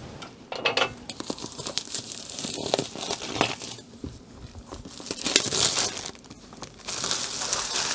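Clear plastic shrink wrap being pulled and peeled off a cardboard box, crinkling and tearing in irregular bursts.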